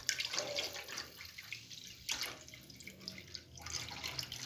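Thinned yogurt and gram-flour mixture (lassi) pouring in a stream into a pot of cooked masala, splashing, with a couple of louder surges near the start and about two seconds in.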